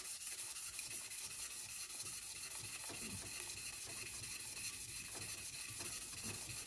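600-grit sandpaper wrapped around a Chevy 4.3L V6 crankshaft journal, spun back and forth by a string to lightly polish the journal. The result is a steady rubbing hiss in rapid, even strokes.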